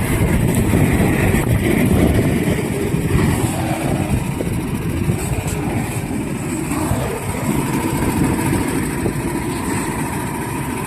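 A machine running steadily with a loud low rumble, like an engine idling, with a faint steady high tone over it.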